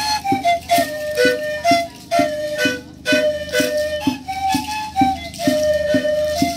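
Cariço panpipes (pebúrio in Tuyuka) playing a repeating melody of short held notes, stepping up and down. Under it runs a steady low beat about twice a second.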